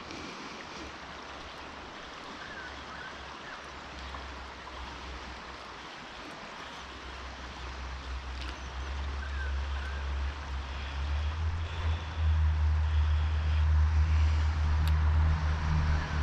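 Flooded creek rushing steadily. A low rumble builds underneath from about halfway and is loudest in the last third.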